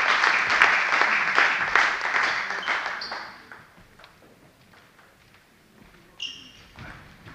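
Spectators clapping for a won point in a table tennis match, the applause fading out after about three seconds. A couple of short, high squeaks follow.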